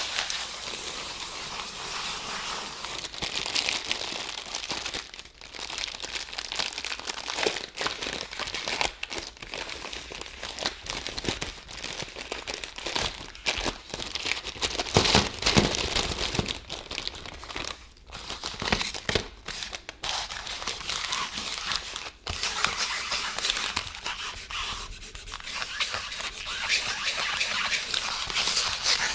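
Plastic Twix wrapper crinkling and tearing as it is handled and opened, a continuous crackle with scattered sharp clicks.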